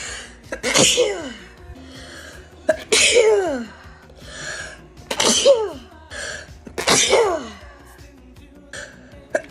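A person sneezing in a rapid fit: four loud sneezes about two seconds apart, each ending in a falling cry, with short breathy intakes between them.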